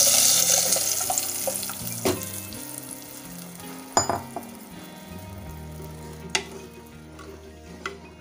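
Dal poured into hot garlic oil in a clay pot, sizzling loudly at first; the sizzle dies down over the first few seconds as the liquid cools the oil. A few sharp knocks of utensils against the pot follow as it is stirred.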